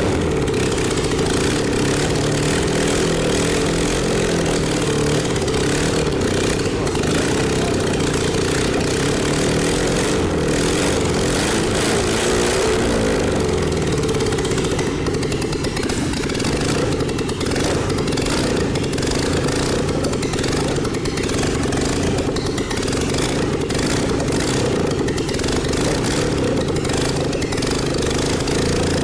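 Four-stroke petrol engine on a test stand, its pistons fitted with rubber piston rings, running steadily.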